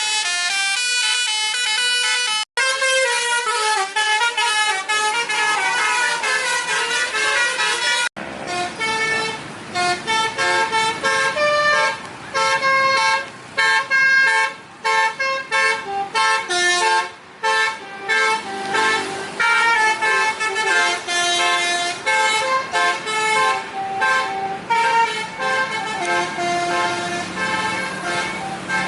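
Tour bus's telolet horn, a multi-tone air horn, playing a jaunty tune of short reedy notes that step up and down in pitch. The tune breaks off and starts again, with short gaps about two and a half and eight seconds in.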